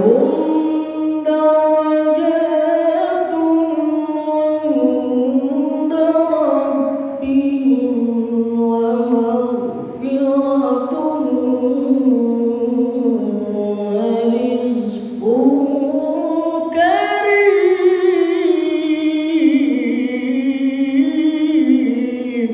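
A man's voice reciting the Quran in the melodic, drawn-out tajwid style into a microphone: long held notes that slide up and down with ornamented turns, in one continuous stretch of chanting.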